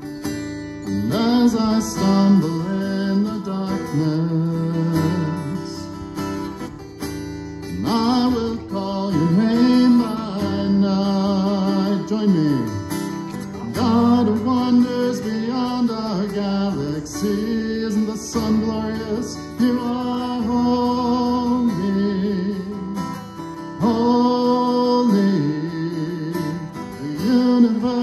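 Strummed acoustic guitar accompanying a man singing a worship song into a microphone, with other voices singing along from song sheets.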